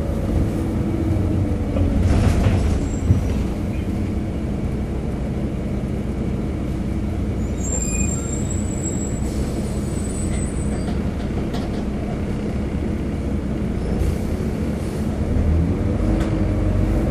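Volvo B7RLE single-decker bus heard from on board, its diesel engine and drivetrain running with a steady low drone. A thin high squeal comes in about eight seconds in and lasts a few seconds.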